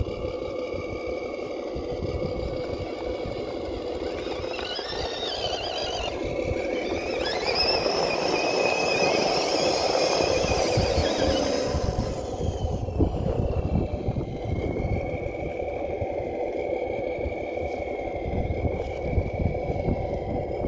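Electric motor and gear drive of an RC truck whining as it tows another RC truck on a rope: a steady high whine that rises in pitch and gets louder between about four and twelve seconds in, then settles back, over a low rumbling noise.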